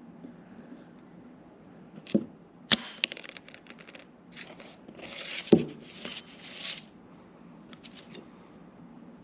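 Small steel parts, likely the planer column bearings, being handled on a hard surface: a few sharp clinks and knocks, one with a brief metallic ring, and a stretch of scraping.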